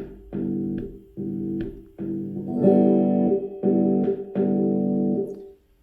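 Electric guitar chord ringing through an amplifier, cut off and back on about six times in a row as the kill switch in the volume knob is tapped, giving a stuttering on-off sound; the kill switch shunts the output to ground so each tap silences the guitar completely.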